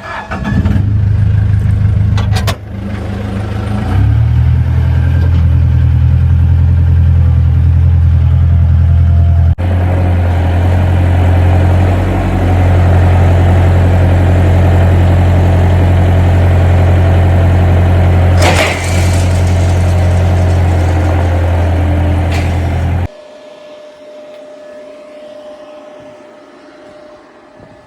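An engine starts, runs steadily with a low drone for about twenty seconds, and shuts off suddenly near the end.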